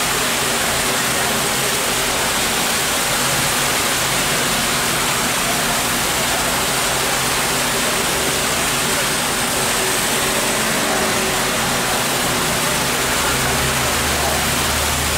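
Steady rain falling on a wet street, an even hiss. A vehicle's low rumble joins near the end.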